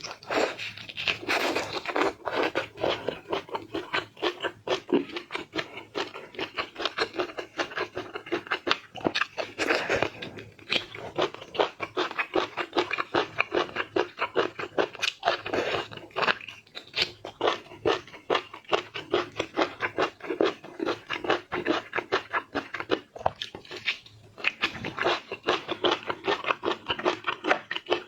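Close-miked chewing and biting of seafood: a dense run of crisp crunches, several a second, with a few short pauses.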